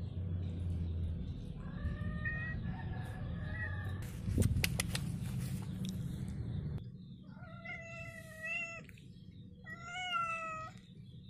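Domestic cat meowing: a faint drawn-out meow about two seconds in, then two long, clear meows in the second half, the first about a second and a half long. A few sharp clicks come about four seconds in.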